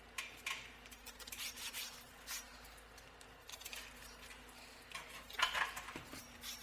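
Quiet handling noises: scattered light clicks and rustles, busiest about five seconds in, over a faint steady hum.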